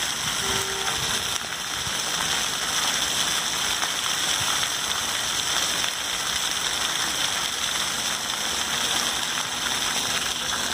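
Water jets of a floor fountain splashing down onto stone paving: a steady hiss of falling water.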